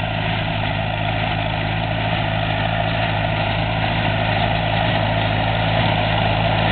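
Tractor engine running steadily under load while pulling a working small square hay baler, a constant low drone with machinery noise over it, growing slightly louder toward the end.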